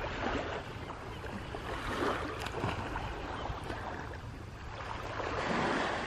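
Gentle waves washing onto a sandy beach in a steady hiss, swelling a little about two seconds in and again near the end.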